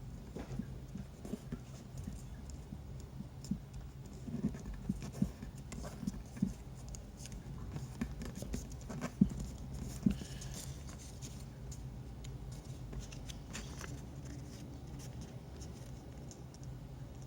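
Paper being handled, folded and creased by hand, with irregular soft taps and clicks on a hard surface; the two sharpest taps come about nine and ten seconds in, and the handling thins out after that.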